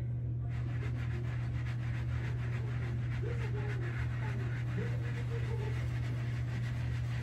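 Faint soft rubbing of a hair curl sponge being rolled over short coily hair, under a steady low hum.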